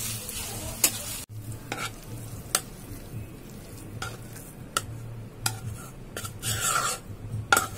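A spatula stirs shredded chicken and cabbage sizzling in a nonstick frying pan, with one sharp click. About a second in, the sizzle cuts off. Scattered light clicks and a brief rustling scrape follow over a steady low hum.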